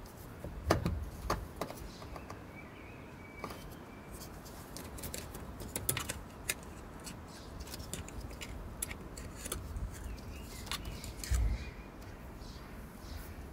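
Irregular light clicks and knocks of a flat-blade screwdriver on a plastic electrical connector as its catch is pried and released, with a few duller thumps from hand and tool handling.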